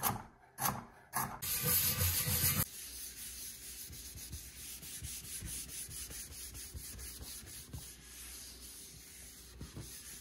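A knife chopping carrots on a wooden cutting board with a few sharp knocks. Then, from about three seconds in, a hand rubs a pad back and forth over the acacia end-grain board, a soft steady rubbing made of many quick strokes.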